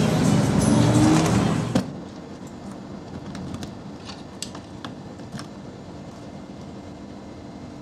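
A loud rushing noise that cuts off about two seconds in, then quiet outdoor background with a handful of small sharp clicks as fingers work the catch of a small black case.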